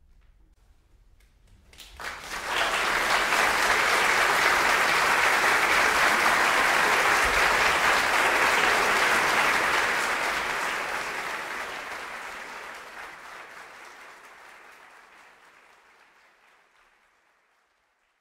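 Audience applauding. It breaks out about two seconds in after a near-silent pause, holds steady, then dies away gradually over the last several seconds.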